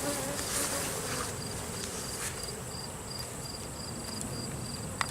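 Swarm of honeybees buzzing around an opened hive, a steady hum, with a high-pitched chirping that pulses about three times a second.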